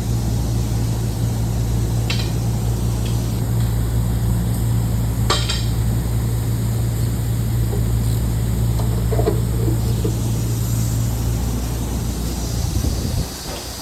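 Large 50 hp electric motor running with a steady low hum, with a few light metallic clinks. The hum cuts off suddenly near the end.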